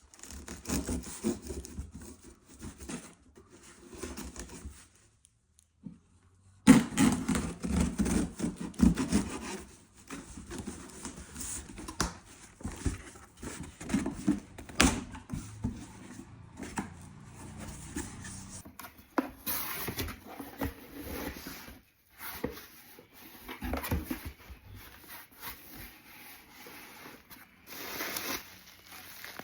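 A package box being opened and its packing handled: irregular rubbing, scraping and rustling, broken by a couple of short silent gaps.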